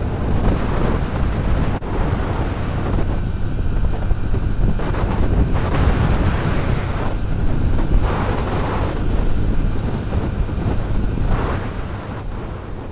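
Wind buffeting the microphone while riding a motorcycle, a loud steady rush that surges and eases in gusts, with vehicle noise underneath.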